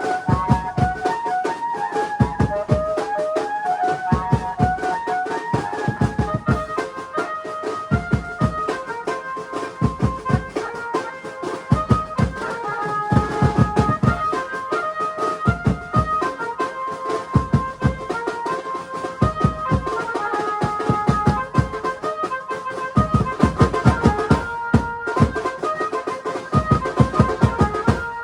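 Garba dance music: a keyboard melody over a fast, steady drum beat.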